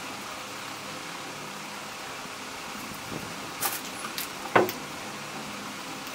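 Steady room noise, an even hiss with a faint hum like a fan, broken by a few light clicks and one sharper tap a little past the middle.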